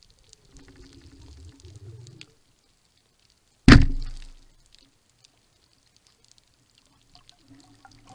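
A Matador 76 band-powered speargun firing underwater: one sharp, loud crack as the shaft is released, dying away over about a second.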